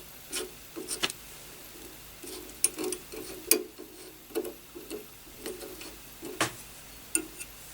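Irregular small clicks and taps of a hand tool on the motherboard, with light scraping, about a dozen sharp ticks unevenly spaced, the loudest about three and a half seconds in.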